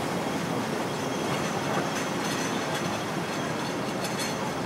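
Steady city street traffic noise, with a few light ticks near the end.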